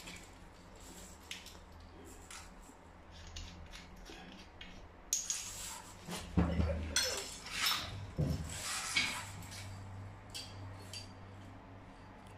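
Metallic clinks and rattling of a stainless steel flexible shower hose and its fittings being handled, denser in the middle with a few dull knocks.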